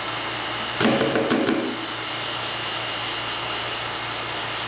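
Vacuum pump running steadily with a constant hum, pulling a vacuum on a homemade chamber to degas freshly mixed epoxy. A brief louder noise comes about a second in.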